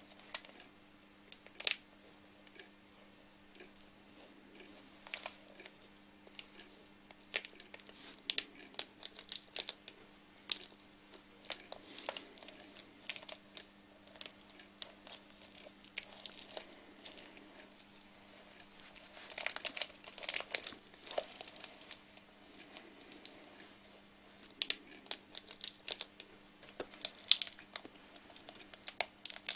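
Hands rubbing lotion over a small figure and picking at it. The handling gives irregular crinkling and crackling clicks, thickest about two-thirds of the way through, over a faint steady low hum.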